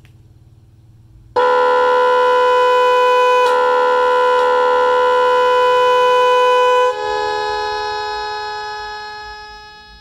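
A pair of electric snail horns, run from a multi-sound horn control module, sounds a loud steady pitched blast starting about a second and a half in. Near seven seconds the tone changes and then fades away toward the end.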